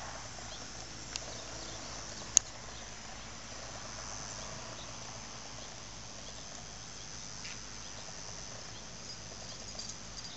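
Faint, steady, high-pitched insect chirring over quiet outdoor ambience, with one sharp click about two and a half seconds in.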